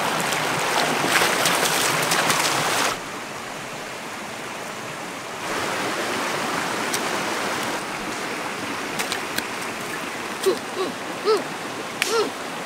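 Shallow rocky stream running, a steady rushing of water over stones that swells and drops in loudness. Near the end come a few short rising-and-falling calls.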